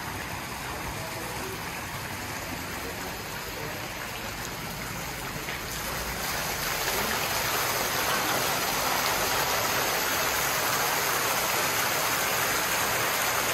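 Pool water features running: water pouring and splashing steadily into the pool and spa, in a continuous hiss that grows louder about six seconds in.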